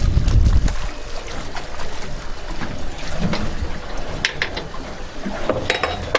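Wind buffeting the microphone for about the first second, then water lapping around a small boat, with a few sharp clicks and knocks from handling on board.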